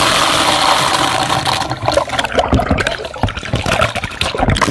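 Water pouring down over a person bathing and splashing close by, a dense steady rush. From about two seconds in, irregular sharper splashes and slaps join it.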